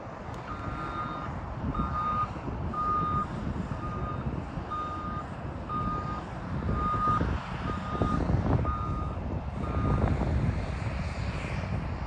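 Reversing alarm on a JCB 419S wheel loader, beeping about once a second, ten beeps that stop near the end, over the steady rumble of its diesel engine.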